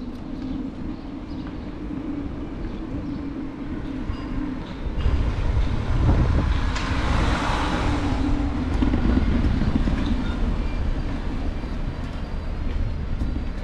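Riding noise heard from a moving bicycle: tyre rumble and wind on the microphone. It gets heavier about a third of the way in, with a rushing swell around the middle as a car passes.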